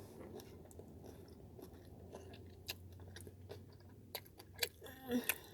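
A person chewing a bite of chicken wing close to the microphone: soft, irregular mouth clicks and crunches, more of them in the second half.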